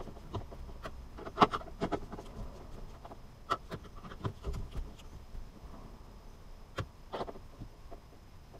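Plastic door pillar trim being handled and fitted by hand, giving irregular sharp plastic clicks and taps over a low rustle, with the loudest click about a second and a half in.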